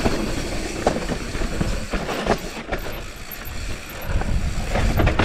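Mountain bike riding fast down a dirt trail: tyres rolling over the dirt, with the chain and frame rattling and sharp knocks over bumps, and wind rumbling on the microphone. It gets louder near the end.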